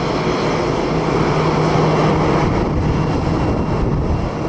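Jet aircraft engines running, a loud steady rumble with a low hum through it.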